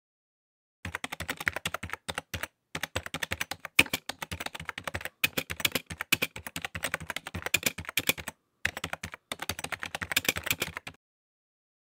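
Computer keyboard typing in fast runs of key clicks, broken by a few short pauses, starting about a second in and stopping about a second before the end. It is a typing sound effect laid over text being typed out on screen.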